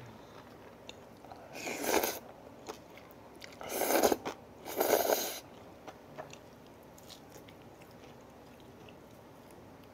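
Slurping bibim naengmyeon noodles from the bowl: three loud, hissing slurps about two, four and five seconds in, with quiet chewing between them.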